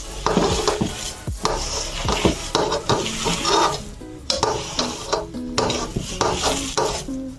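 A hand mixing and squeezing chopped spinach into a thick gram-flour batter in a stainless steel bowl: repeated wet squelching strokes with fingers scraping against the steel, over soft background music.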